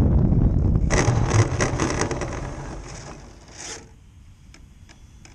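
Baby Ace RC model airplane rolling across grass, heard from on board: a rumbling roll, then grass brushing and scraping against the airframe and wheels for a few seconds, fading out as the plane coasts to a stop. A few faint ticks follow.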